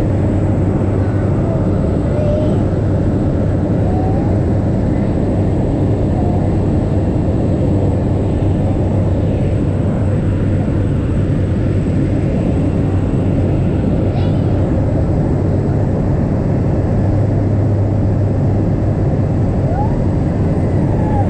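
Engine of a small high-wing plane in flight, heard from inside the cabin: a steady, unbroken drone with a deep hum.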